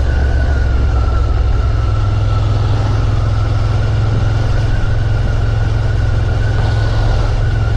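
Suzuki Gladius 650's V-twin engine running steadily under way, with a steady low hum and a faint whine that dips slightly at the start.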